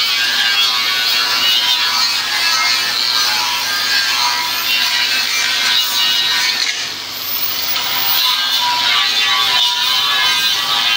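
Compressed-air paint spray gun hissing as it sprays, easing off briefly about seven seconds in, with background music underneath.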